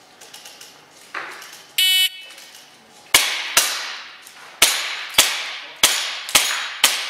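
Shot-timer start beep, then a fast string of seven sharp shots from a Tokyo Marui Hi-CAPA 5.1 gas-blowback airsoft pistol, each followed by a short metallic ring as the BBs strike steel target plates.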